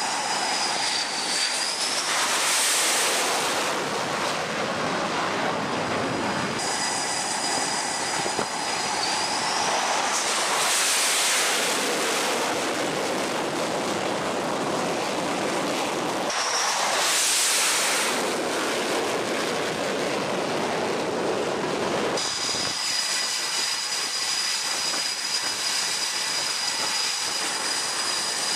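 Boeing F/A-18 Super Hornet jet engines running, a steady rush of engine noise with a high turbine whine that glides up and down at times. The noise swells loud three times as jets pass close.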